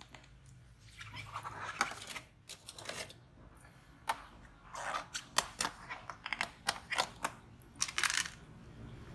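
Thin clear plastic tubs being handled, giving a string of sharp clicks, taps and crinkling. The clicks come thickest between about four and eight seconds in.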